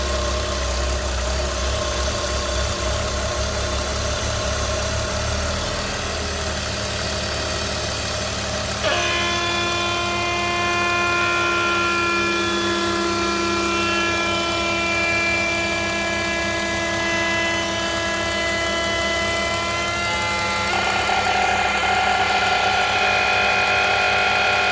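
BMW E46 325i's straight-six engine running at idle with an extra noise that changes with vacuum. About nine seconds in, a cluster of steady high tones cuts in suddenly, and it shifts again later on. The owner suspects a noisy DISA valve or a vacuum leak.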